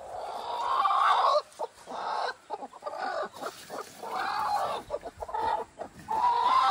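Mother hen squawking and clucking in protest while being pulled out of her nest box: one long harsh call, then a string of shorter ones.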